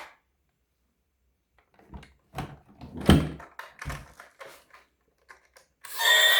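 A run of irregular knocks and thumps from objects being handled and set down, the loudest about three seconds in. Music starts just before the end.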